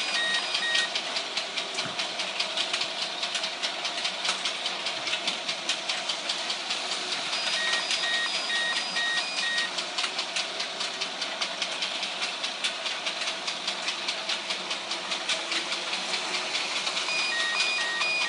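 Model train running on its track with a rapid, even clicking. Short runs of electronic beeping come and go at the start, around eight seconds in and near the end.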